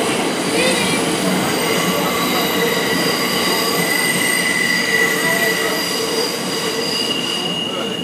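New York City subway car running, heard from inside the car: a steady rush of wheel and track noise with the steel wheels squealing on the rails in several high, held tones.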